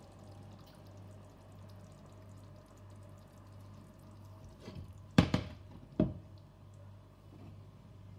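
A stainless steel pot being lifted off a glass cooktop: a few light knocks, then two sharp metallic clunks about a second apart, over a steady low hum.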